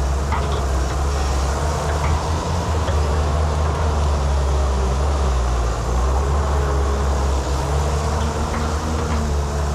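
Excavator engine running steadily, a low even hum that holds its pitch.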